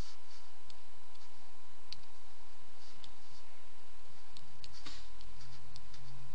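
Computer mouse clicks, irregular and scattered, with a faint steady tone behind them.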